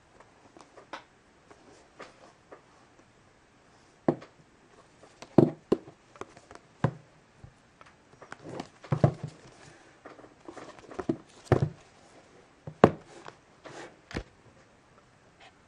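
Handling sounds from an iPad mini's cardboard retail box being turned over and moved about on a wooden table. Irregular soft taps and rubbing come first, then sharper knocks scattered through the rest.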